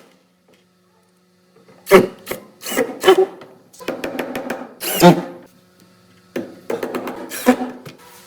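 Wood being worked by hand: a series of loud rasping strokes, starting about two seconds in, typical of sawing or rasping a wooden part.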